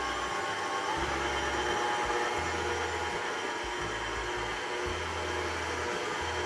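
Electric stand mixer running, its motor whirring steadily as the beater mixes a soft Viennese batter of margarine, sugar and flour in a steel bowl.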